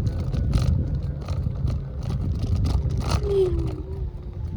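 Electric scooter being ridden: wind rumbling on the microphone, with clicks and rattles from bumps, over a faint steady motor whine that dips slightly in pitch about three seconds in.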